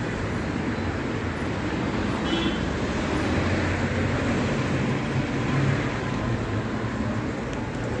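Steady road traffic noise: car and bus engines and tyres passing on the street, a continuous low rumble.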